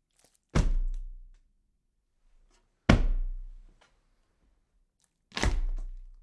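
Three heavy thunks about two and a half seconds apart, each a sharp hit that dies away over under a second with a low rumbling tail.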